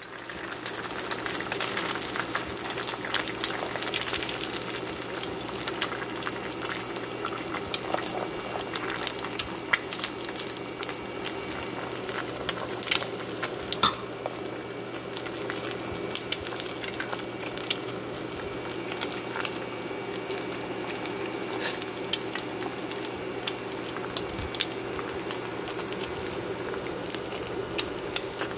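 Two eggs frying in oil in a stainless steel pan: a steady sizzle, dotted with frequent small pops and crackles.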